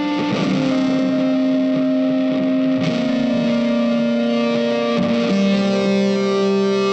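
Background music led by a distorted electric guitar, holding long notes that step to a new pitch every two to three seconds.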